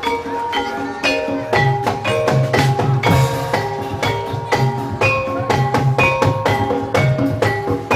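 Live incling ensemble music: tuned percussion playing a steady run of struck, ringing notes over a low drum beat, with a brief cymbal-like hiss about three seconds in.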